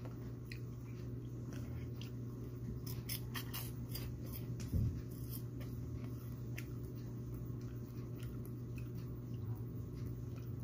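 Faint, irregular crunching of sugar-coated peanuts being chewed over a steady low hum, with one soft thump about five seconds in.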